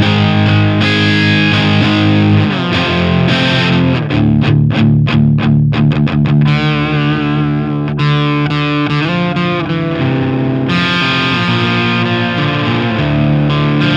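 Electric guitar played through a London City Bulldog valve amp head with EL34 power tubes, on its clean channel. Sustained chords, then a run of quick repeated strums, about three a second, starting about four seconds in, then held chords with vibrato and a fresh chord near the end.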